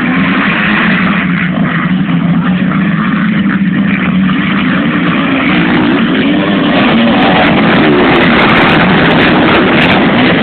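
A pack of motocross bikes, mostly four-strokes plus a single two-stroke Yamaha DT 180, running loud and revving hard off the start. The engine notes rise and fall as the bikes pass close, more strongly over the last few seconds.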